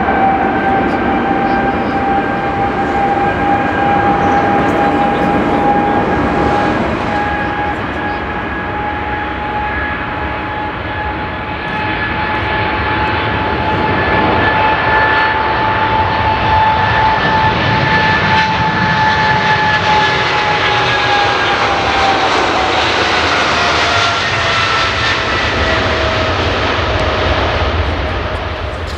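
Emirates Boeing 777-300ER's GE90-115B turbofans running with a strong, high whine over a steady roar as the airliner taxis. The whine drops lower a few seconds from the end, and a low rumble swells in the second half.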